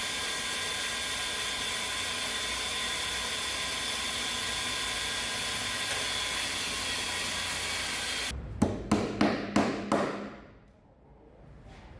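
An electric drill driving a homemade wood lathe runs steadily with a constant whine. It stops abruptly about eight seconds in, and six sharp knocks follow in quick succession.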